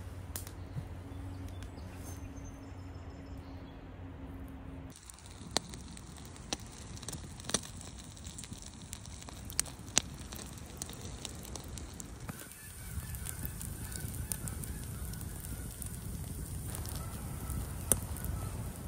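Wood campfire crackling, with a handful of sharp pops from the burning logs. In the later part, faint repeated bird calls are heard in the background.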